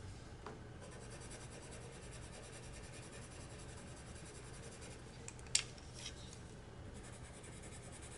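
Faint scratching of a Caran d'Ache Luminance coloured pencil shading back and forth on paper, with one sharp short click a little over halfway through.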